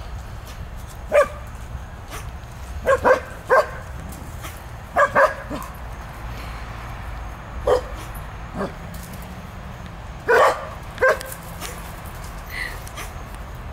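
A dog barking during play, about ten short, high-pitched barks at irregular intervals, some in quick pairs.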